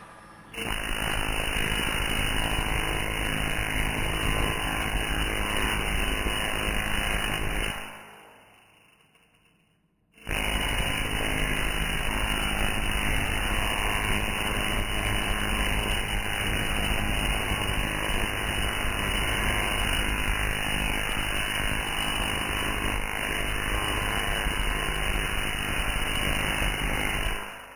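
Tesla coil sparking, its arcs striking a foil-wrapped Creme Egg on a grounded metal stand: a loud, steady, noisy discharge that runs for about seven seconds, stops for about two, then starts again and runs until just before the end.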